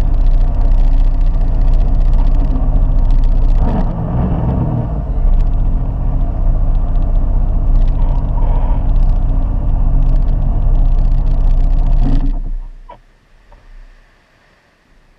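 Sea-Doo GTI 130 jet ski's three-cylinder four-stroke engine running steadily at low speed, heard up close from a camera mounted on the craft, then stopping about twelve seconds in.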